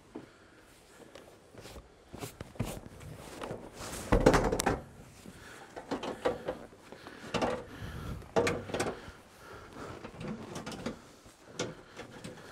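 A vinyl captain's seat being handled and lowered onto its base in a van cab: a string of irregular clunks, knocks and scrapes. The heaviest thud comes about four seconds in, and several more knocks follow a few seconds later.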